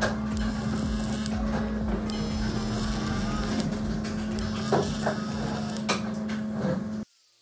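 Small electric motor running with a steady hum, with a few light clicks over it, cutting off suddenly near the end.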